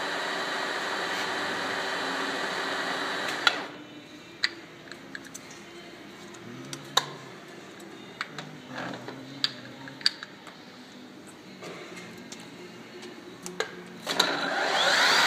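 Deckel FP-4M universal milling machine's spindle drive running steadily, then dropping away about three and a half seconds in. Scattered clicks and knocks follow as the speed-selector dial is turned by hand, and near the end the spindle starts up again with a rising whine at the new speed.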